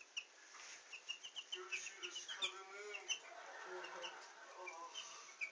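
Young turkey poults peeping: a quick run of short, high chirps, thickest in the first few seconds, with a few lower, wavering calls mixed in.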